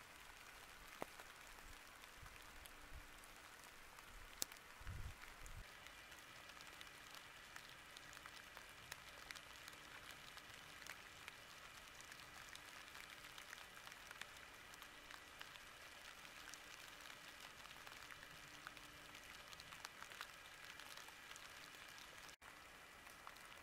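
Faint rain falling on wet oak leaf litter, an even hiss with scattered drop ticks. A sharper tick and a few low thumps come about four to five seconds in.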